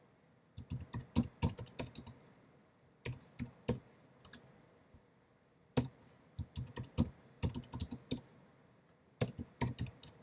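Computer keyboard keystrokes: several short runs of typing separated by brief pauses.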